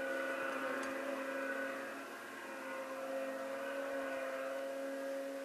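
Snowmobile engine running at a steady high drone, heard from afar across open snow.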